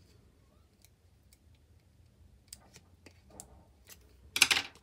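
Hands handling a card circle and ribbon on a craft mat: a few light clicks and taps, then a short, loud rustling scrape about four and a half seconds in.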